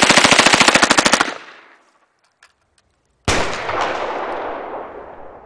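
Automatic firearm firing a rapid burst of evenly spaced shots that stops about a second in, its echo dying away. About three seconds in comes a single loud shot, followed by a long, fading echo.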